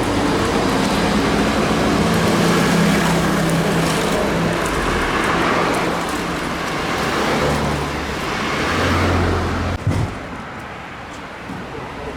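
Motor vehicle engine running amid traffic noise, with a steady low hum that shifts in pitch. It drops off sharply about ten seconds in.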